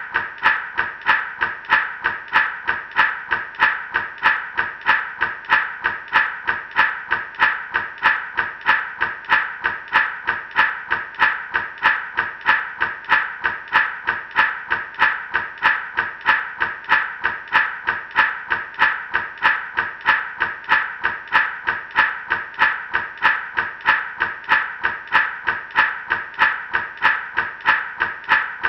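Gourd rattle shaken in a steady, even rhythm, about two shakes a second, each shake a dry burst of seeds rattling inside the gourd.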